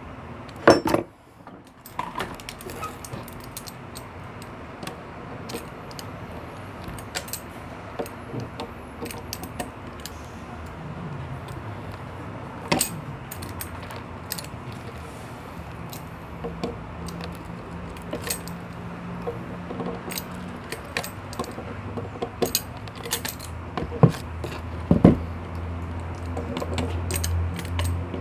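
Metal tools and parts of a washing-machine motor clinking and clicking as they are handled, with scattered irregular taps and knocks.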